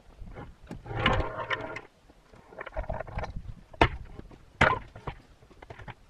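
Irregular wooden knocks and a scraping rustle as a maple log is handled on a band sawmill's bed, with two sharp knocks near the middle. The saw is not running.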